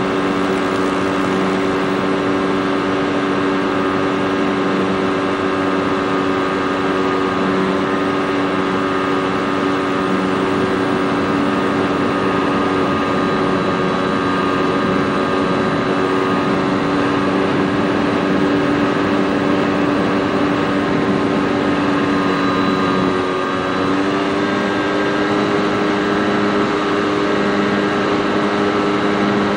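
Senorita RC model airplane's motor and propeller running steadily in flight, picked up by the onboard FPV camera. About three-quarters through, the sound briefly dips, then the tone settles slightly higher.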